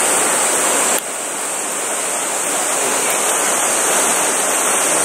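Steady rushing water of a stream inflow, with a sudden dip in level about a second in that recovers gradually.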